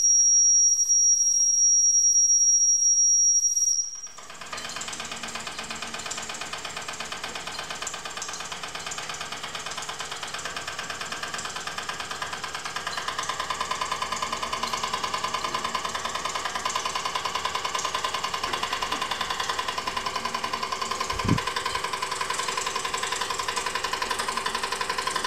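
Wilesco D6 toy steam engine's steam whistle blowing one steady high note for about four seconds, letting steam off the boiler to keep the engine from running too fast. The whistle stops and the small single-cylinder steam engine runs on fast and unloaded with rapid even chuffing beats, a steady whine joining about halfway.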